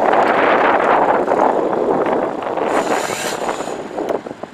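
Toyota LandCruiser 79 Series V8 turbo diesel running under load through a 3-inch exhaust as the ute pulls away, loud at first and fading from about two seconds in. Short sharp crackles come in the last second.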